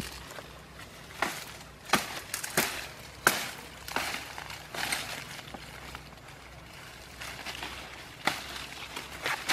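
Dry twigs and stems snapping as they are broken and pulled by hand in brush, with dry leaf litter crackling. A string of sharp cracks comes in the first five seconds, and one more near the end.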